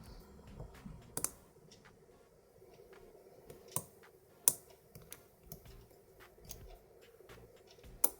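Irregular small clicks of a hook pick working the pins inside a five-pin tumbler lock during single-pin picking, with a few sharper, louder clicks among them.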